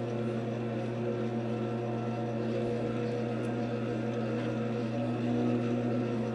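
Grizzly variable-speed wood lathe running at about 690 rpm with a foam blank mounted: a steady motor hum that does not change.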